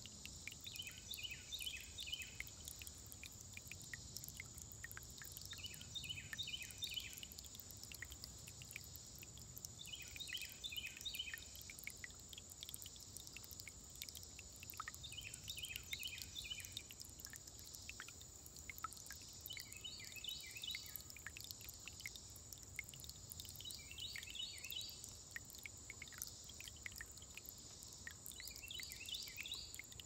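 Small woodland stream trickling and splashing over rocks, with a steady high insect drone. A short trilled chirp repeats seven times, about every four to five seconds.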